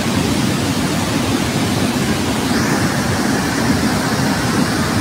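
Muddy flash-flood water, brought down by sudden torrential rain, rushing steadily and loudly as an even, low rumbling wash, with a brighter hiss coming in about halfway through.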